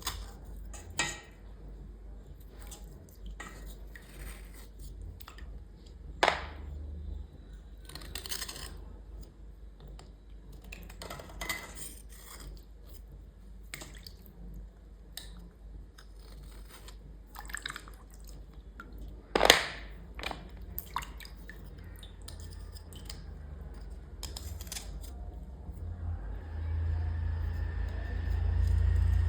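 Small utensils being scrubbed and scraped clean, with scattered scrapes, clicks and taps and two sharper clacks. A low hum swells near the end.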